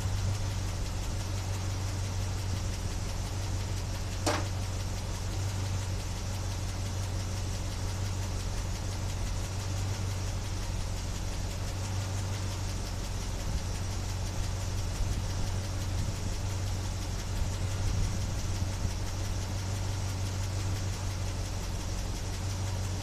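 A 1976 Chevy Blazer's engine idling steadily, with a single sharp click about four seconds in.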